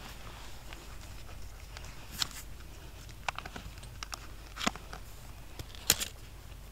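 A few scattered, sharp crunches and clicks of quiet movement, the loudest near the end, over a low steady rumble.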